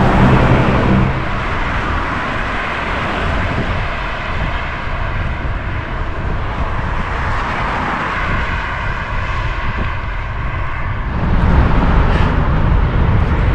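Steady rushing road noise heard while riding a bicycle along a highway, with traffic going by. The rushing is heavy in the low end, and a passing vehicle adds a faint steady whine a little past the middle.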